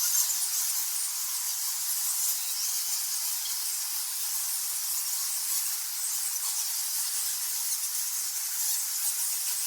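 A colony of bats squeaking and chittering in a dense, continuous high-pitched twitter, with no low sound beneath it.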